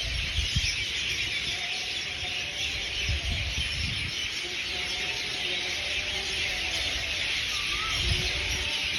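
Evening chorus of many small birds chirping together in a dense, steady mass. A few low thumps of microphone handling come through.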